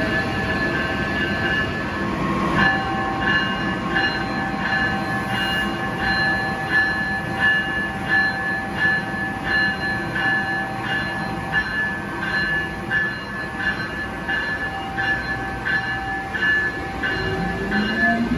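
Amtrak Siemens ACS-64 electric locomotive pulling its train out of the station: its bell dings steadily, about three strikes every two seconds, over the running noise of the train. Near the end the whine of its traction motors starts rising as it picks up speed.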